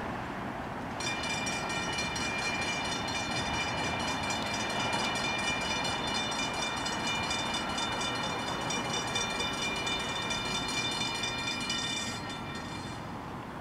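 Safetran railroad crossing bell ringing rapidly as the crossing gates come down, starting about a second in and stopping about a second before the end, over the low rumble of an approaching NJ Transit train.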